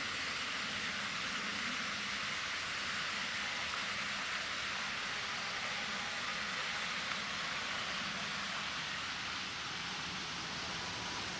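Steady, even hiss of background noise, high in pitch, with no distinct events.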